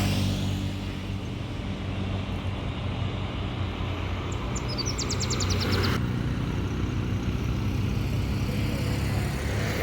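A motor vehicle engine running steadily with a low hum. Midway, a bird gives a quick run of about ten short, high chirps.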